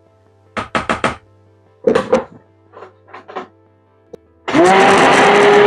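A few knocks and taps, then a stainless immersion (stick) blender switches on about four and a half seconds in. Its motor whine rises quickly and then runs steadily as it blends beer lye water into melted oils to start saponification for soap.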